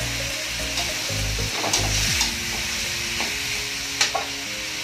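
Pork trotters sizzling in oil and soy sauce in a wok while a spatula stirs them, with a few sharp scrapes and clinks against the pan, the loudest about four seconds in.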